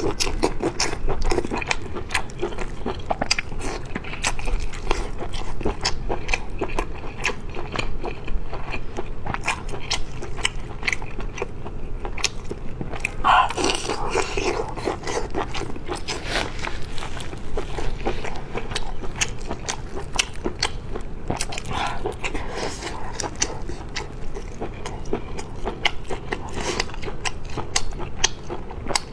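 Close-miked eating sounds: biting into and chewing ring sausage with raw garlic, with wet mouth noises and crunching, and many quick clicks throughout.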